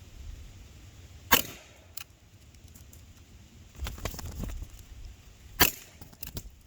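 Two sharp cracks from a Gletcher APS Stechkin .177 CO2 blowback BB pistol being fired, about four seconds apart, with lighter clicks and handling noise between the shots.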